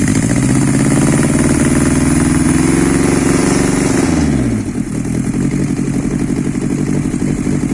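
Drag-race engine of a junk car catching and running at a fast idle, then dropping to a lower, steady idle about four seconds in.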